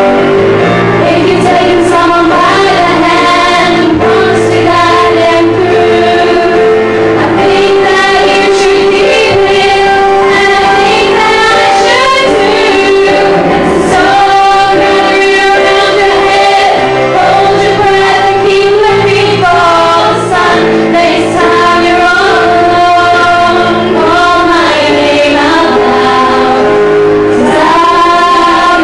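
Young female singers singing a musical-theatre song into handheld microphones, with steady accompaniment beneath the voices.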